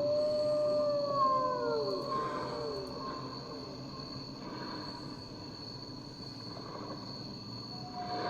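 A howl: a long call that starts high and slides down over about two seconds, overlapped by a second falling call, over a steady high-pitched tone. Near the end a sharp click and a new steady tone come in.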